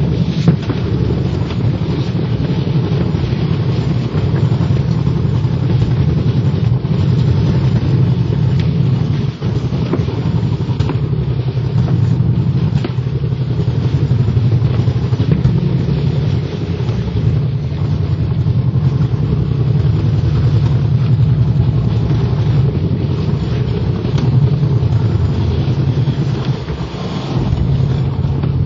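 Alpine slide sled running down a concrete track, a loud steady low rumble that dips briefly near the end.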